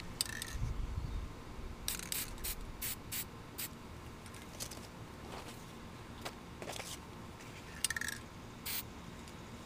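Aerosol spray paint can hissing in short bursts: one at the start, a quick cluster of about six about two seconds in, and two more near the end.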